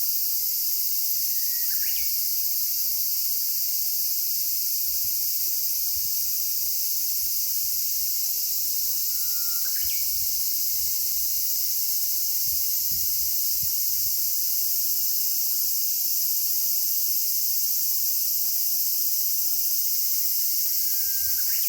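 Cicadas singing in a steady, shrill, unbroken drone, while a Japanese bush warbler (uguisu) gives its 'hoo-hokekyo' song three times, roughly every ten seconds: a held whistle followed by a quick flourish.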